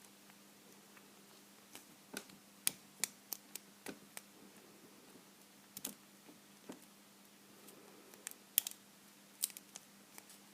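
Irregular small metallic clicks and ticks of a lock pick and tension wrench working the pins inside a vintage Corbin pin tumbler padlock, over a faint steady low hum.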